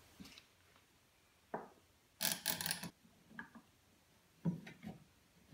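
Faint handling noises as a glued wooden block is set against plywood leg pieces and a bar clamp is fitted: a few light wooden knocks, with a short scraping rub about two seconds in.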